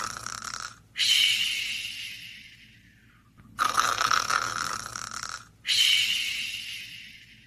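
Slow, regular snoring of a sleeper. Each rough snore lasts about two seconds and is followed by a breath that starts loud and fades away. Just under two full cycles are heard.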